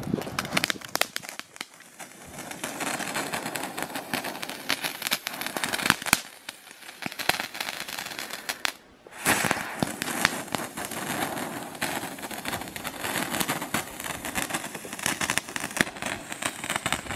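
Ground fountain firework burning: a steady hissing spray thick with sharp crackles. It drops off briefly a little past halfway, then starts up again.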